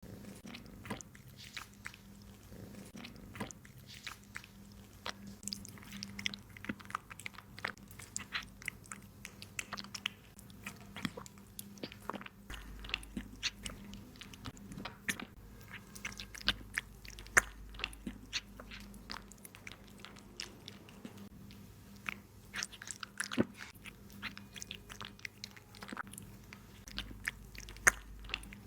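A kitten chewing and biting meat from a plate: quick, irregular wet chewing clicks and smacks, several a second throughout.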